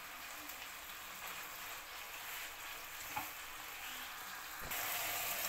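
Chicken breast pieces sizzling in olive oil in a frying pan as they brown, with one light tap a little past the middle as the pieces are turned with chopsticks. About four and a half seconds in, the sizzling suddenly gets louder.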